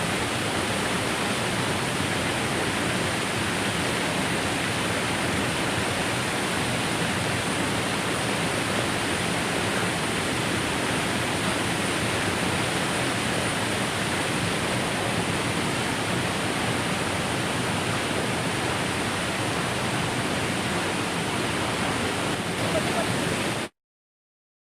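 Waterfall rushing in a steady, unbroken roar, cutting off abruptly to silence near the end.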